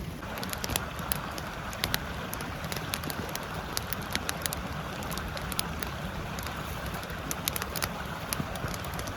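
Wood campfire crackling, with frequent sharp pops and snaps over a steady rushing noise from the forest stream. A steadier hiss joins just after the start and holds on.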